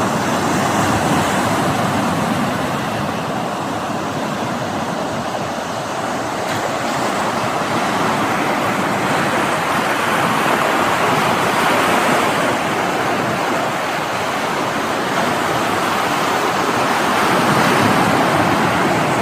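Sea surf washing in: a steady rushing of waves that swells and eases slowly.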